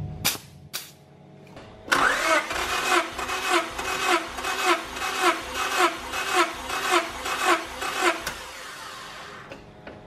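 Honda B16A engine turned over by its starter for about six seconds without firing: the spark plugs are out and the main relay is unplugged for a compression test. The starter whine dips in an even rhythm, about twice a second. Two short clicks come just before.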